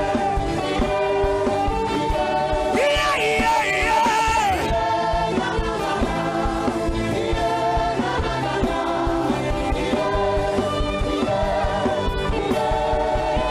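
Gospel worship music: singing over sustained instrumental backing, with no words made out.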